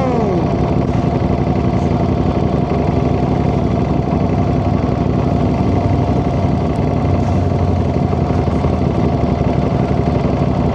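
Ducati Panigale V4 motorcycle's V4 engine, its revs falling off in the first half second, then running steadily at low revs.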